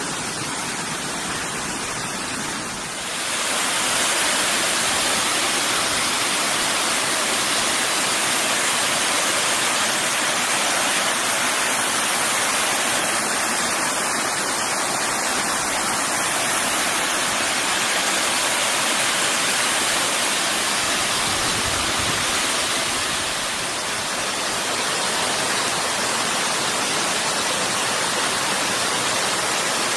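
Rocky woodland stream cascading over boulders and small falls: a steady rush of water that gets louder about three seconds in.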